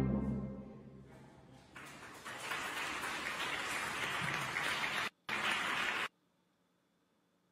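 The last orchestral chord of an opera aria recording dies away. Then audience applause starts about two seconds in and cuts off suddenly about six seconds in.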